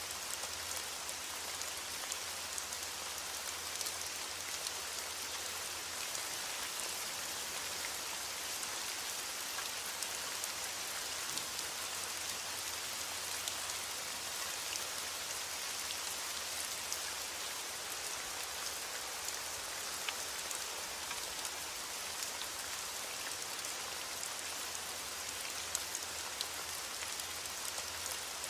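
Heavy rain on a window: a steady, dense hiss of rain with scattered small ticks of individual drops.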